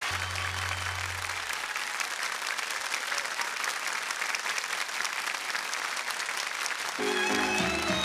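Studio audience applauding. About seven seconds in, instrumental music starts the song's introduction under the clapping.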